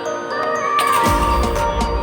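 Background music: a chiming, bell-like melody that is joined by a steady bass beat about a second in.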